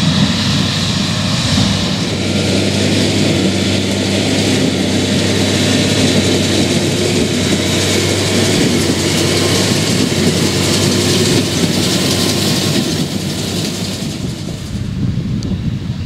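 New Holland T7.210 tractor's six-cylinder diesel running steadily under load, pulling a Massey Ferguson 186 square baler at work. The sound eases off a little near the end.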